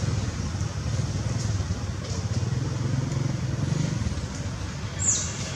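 Low steady rumble of a motor-vehicle engine running, with a brief high squeak that falls in pitch about five seconds in.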